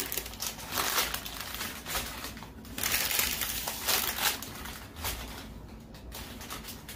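Rustling and crinkling of artificial flower stems being handled and set down on the floor, in uneven bursts that die down over the last couple of seconds.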